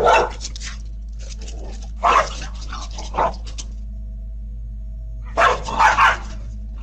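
Dogs barking in short separate barks, a few early on, then a pause and a quick cluster of three barks near the end, picked up by a Ring doorbell camera's microphone with a steady low hum under them.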